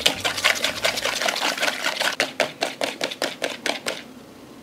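Hand wire whisk beating egg and sugar in a plastic bowl: a fast, even clicking of the wires against the bowl, about five strokes a second, thinning out about four seconds in.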